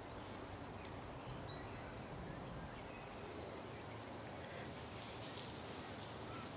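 Quiet woodland ambience: a steady faint hiss of outdoor air with a few faint, brief high chirps.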